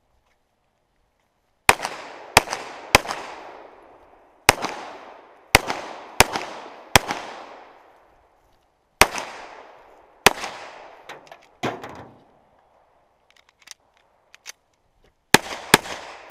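Pistol shots fired singly in quick strings, about a dozen in all, grouped with pauses of a second or more between groups. Each shot rings out and fades over about a second, and there is a lull of a few seconds before the last quick group.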